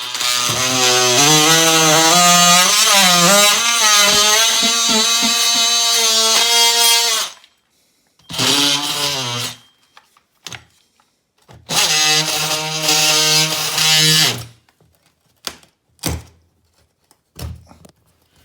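DeWalt 18V cordless oscillating multi-tool cutting out OSB board behind plasterboard, run in three bursts: a long one of about seven seconds, a short one, then one of about three seconds, its pitch wavering as the blade bites. A few short knocks follow near the end.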